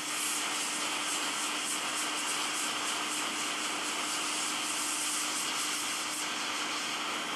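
Hot-air rework station blowing at half airflow onto a phone's charging connector to melt its solder for removal: a steady rushing hiss with a low steady hum underneath.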